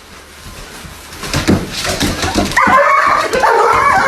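An animal's high, wavering cries, starting a little past halfway and going on, after a few scattered knocks and rustles.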